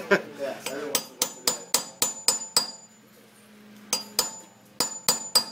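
Hammer blows on a staking punch held against a Honda S2000 axle nut, staking the nut's collar into the axle groove. The sharp metallic strikes come in a run of about seven quick blows, then after a short pause about five more.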